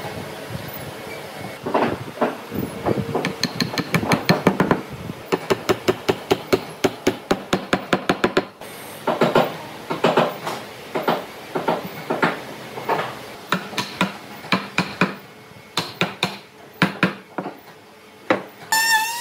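Hammer blows knocking glued tenon joints of a wooden frame together, sharp strikes on wood in quick runs of several a second with short pauses between.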